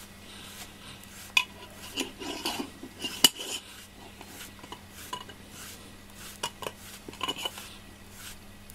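A FURminator deshedding tool drawn in strokes through a cat's fur, with light scraping and scattered sharp clicks and clinks, the loudest about three seconds in.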